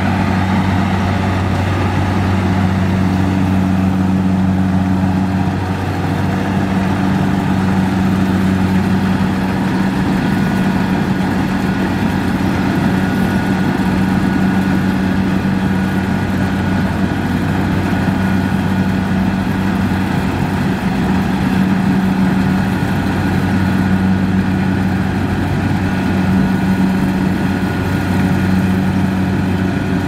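Kubota DC-70 Plus combine harvester running while it cuts rice: a steady engine drone with a low hum. A thin steady whine joins about ten seconds in.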